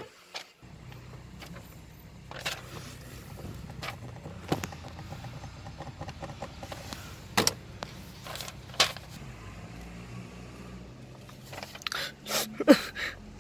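A car's engine idling, a low steady hum, broken by a few sharp clicks.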